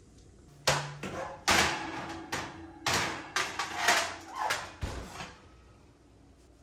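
Kitchen clatter: about a dozen sharp knocks and clinks in quick succession, starting about a second in and dying away near the end, as dishes and utensils are handled.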